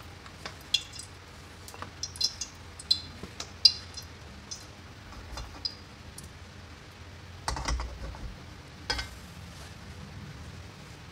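Cooking oil heating in a metal wok on a gas burner, crackling with sharp spits and pops that crowd the first few seconds. About halfway through, a louder scrape and clunk as the wok is swirled and set back down on the burner grate.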